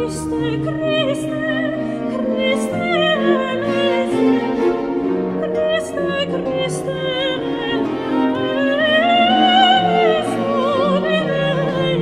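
Baroque sacred music: a soprano sings a long ornamented solo line with vibrato over strings and basso continuo, one phrase rising and falling near the end.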